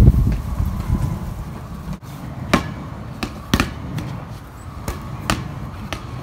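A ball bouncing on a hard paved patio: several sharp slaps spread over the last four seconds, after a low rumble in the first two.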